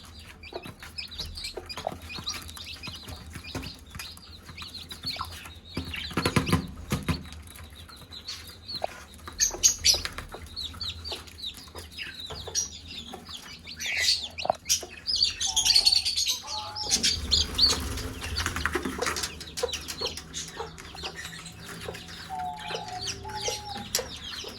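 Chicks peeping constantly in quick high chirps while a domestic hen clucks now and then, the hen's call that summons chicks to food. Two short bursts of rustling noise cut across the calls.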